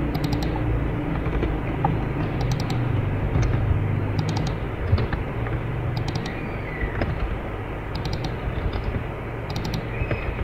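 Computer keyboard keys tapped in short bursts of a few clicks every second or two as numbers are typed in, over a steady low background rumble.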